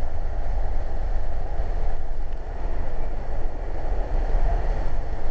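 Steady rumble of a moving Metrolink commuter train, heard from inside a passenger car.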